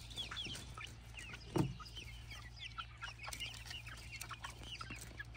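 Flock of eight-week-old ISA Brown pullets peeping and cheeping: many short, high chirps in quick succession, with one louder, lower call about a second and a half in.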